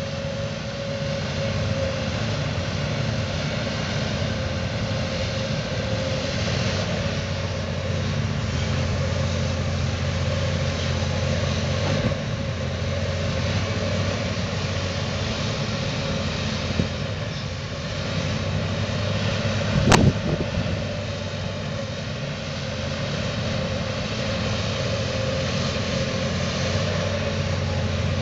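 Komatsu PC360LC tracked excavator's diesel engine running steadily as it digs and swings loads of dirt, with a steady whine above the engine note. A single sharp bang about twenty seconds in.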